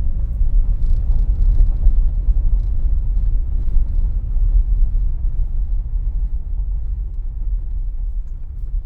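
A vehicle driving slowly along a rough road, heard as a steady low rumble of engine and tyres that eases slightly near the end.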